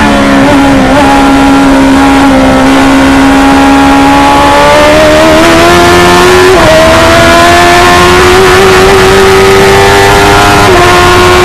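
The Stohr F1000 race car's 1000cc motorcycle engine running loud under load. Its note drops right at the start, then climbs slowly, with a small sudden step up a little past halfway and a slight dip near the end.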